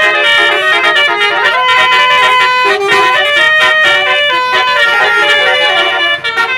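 Indonesian 'telolet' bus horn playing a quick tune, its notes held briefly and stepping from pitch to pitch without pause.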